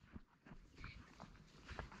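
Faint, irregular thuds of hooves on grass from a walking cow.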